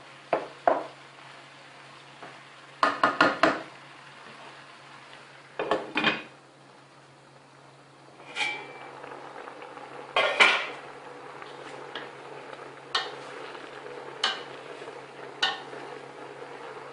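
Metal pots and lids clattering and knocking: a quick run of four knocks about three seconds in and more knocks around six and ten seconds. After that come light single ticks about every second and a bit, over a faint steady simmer.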